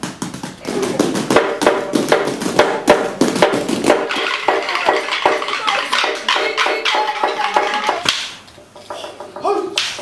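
Māori performers singing a song in unison over fast, even percussive taps from poi balls and short wooden sticks. The singing stops about eight seconds in, and loud shouted voices start near the end.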